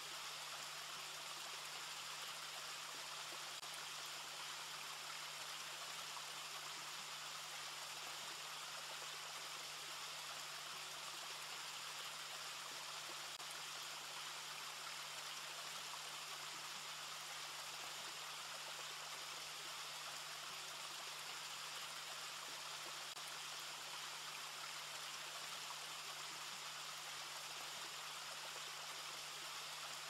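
Faint steady hiss with a low, even hum underneath, unchanging throughout.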